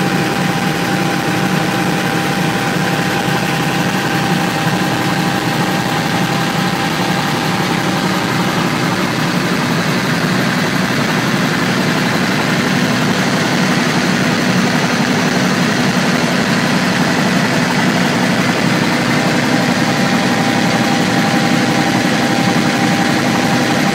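Helicopter engine and rotor noise heard from inside the cockpit in steady flight: a dense rushing drone with a steady high whine and a lower hum, unchanging throughout.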